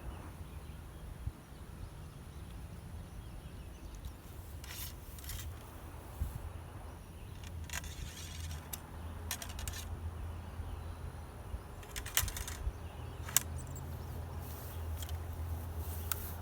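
Short metallic clicks and rattles of a Civil War rifle-musket being handled and loaded, coming in irregular bursts over a low steady hum.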